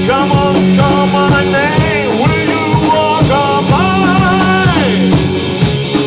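Rock band playing live: a lead melody sliding up and down between notes in two long phrases over guitars and drums.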